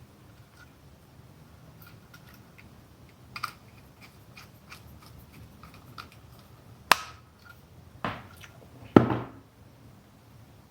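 Hand-tool and wire handling on a control panel: scattered small clicks and snips, with a sharp click about seven seconds in and two louder ones near eight and nine seconds, over faint room hiss.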